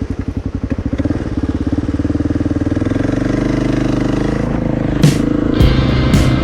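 Kawasaki KLR650's single-cylinder four-stroke engine running, its firing beats slow and distinct at first, then quickening into a steady run as it picks up revs. A few sharp bursts of noise come in near the end.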